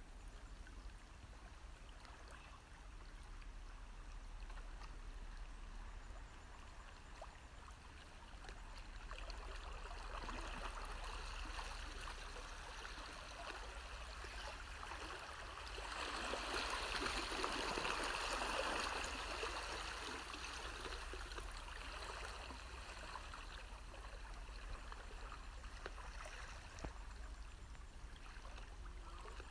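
Gentle water lapping and trickling against shoreline rocks, a continuous wash that swells louder for a few seconds just past the middle.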